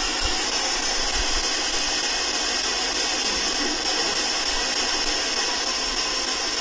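Steady hiss with a low rumble underneath, even throughout and with no distinct events: the recording's boosted background noise.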